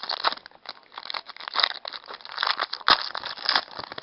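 Trading card pack wrapper crinkling and crackling as it is torn open and handled, a dense run of small crackles with a sharp snap just before three seconds in.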